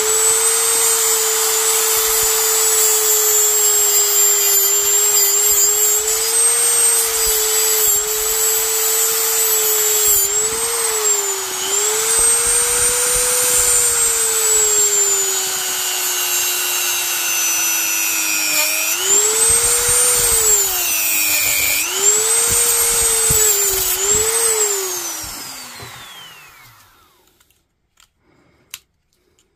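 Dremel rotary tool with a cut-off wheel running at high speed, a steady whine whose pitch sags several times as the wheel bites into the metal connecting strips on a lithium-ion battery pack's cells. The tool winds down about 25 seconds in, and a few faint clicks follow.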